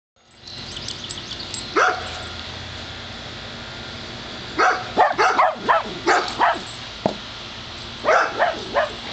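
Dog barking: one bark, then a quick run of short barks about halfway through, and another run near the end.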